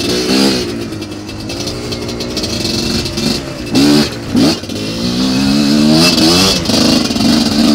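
GPX TSE250R dirt bike's single-cylinder engine revving up and down as the throttle is worked on a trail ride, with two sharp loud blips a little past halfway and a longer held rev near the end.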